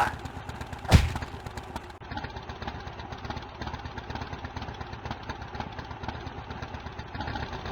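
A heavy thump about a second in, then a steady low rumble like an idling engine.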